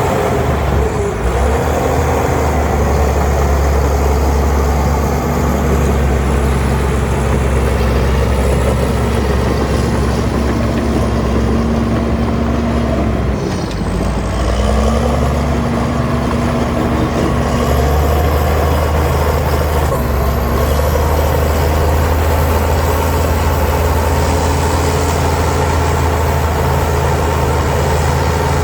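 Heavy diesel engine of an earthmoving machine working under load, a continuous deep drone. Its pitch sags briefly about halfway through and then recovers, and a faint high whine rises and falls above it.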